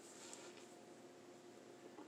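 Near silence: a faint steady hum, with a brief soft hiss at the very start.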